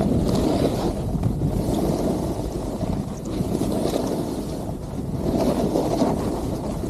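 Wind rushing over the microphone of a camera carried by a downhill skier, mixed with the hiss of skis on snow. The noise swells and eases every second or two.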